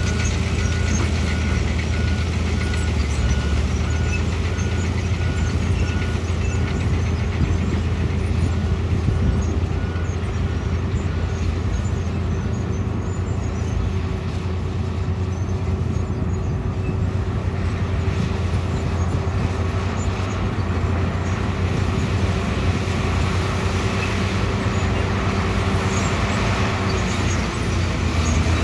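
Bulldozer's diesel engine running steadily under work. During the first ten seconds or so a reversing alarm beeps about once a second.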